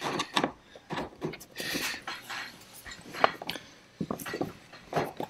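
Irregular small clicks, scrapes and knocks of a screw being turned in by hand and hardware being handled, with one sharper knock about three seconds in.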